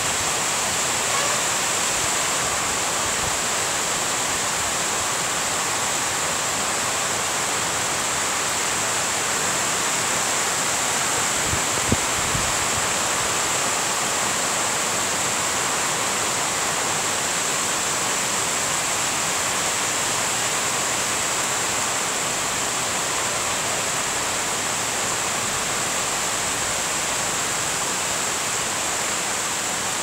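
Heavy rain falling steadily on trees, grass and leaves as an even, unbroken hiss. A single brief knock comes about halfway through.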